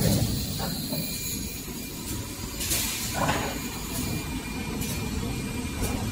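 Tissue-paper embossing and glue-lamination machine running, with a steady low rumble from its rollers and drive. There is a brief hiss about three seconds in.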